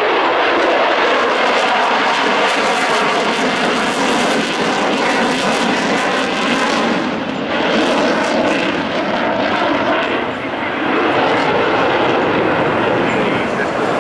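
Eurofighter Typhoon's twin EJ200 turbofan engines at high power with afterburner lit during a display flight: a loud, steady jet noise that dips briefly about seven and ten seconds in.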